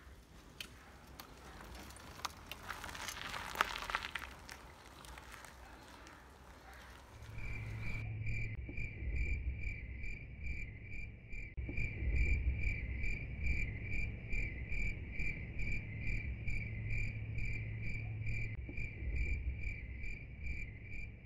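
Faint outdoor noise with a few scattered clicks. About eight seconds in, a steady high chirp starts, pulsing about three times a second like a cricket, over a low rumble.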